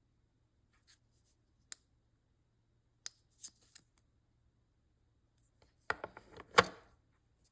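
Handling noises: a few light clicks and taps, then a louder cluster of knocks and rubbing about six seconds in.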